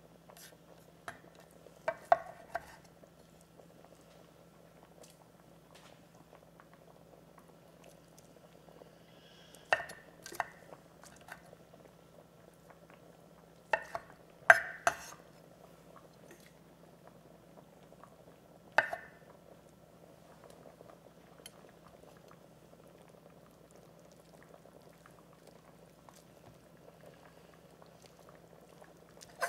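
Chef's knife chopping cooked ham on a cutting board: a few sharp knocks of the blade on the board, at about 2 s, 10 s, 14 to 15 s and 19 s, over a faint steady hum and low hiss.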